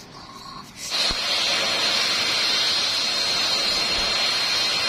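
A blow dryer running, drying a freshly bathed cat's wet fur: a loud, steady hiss with a high whine, starting abruptly just under a second in.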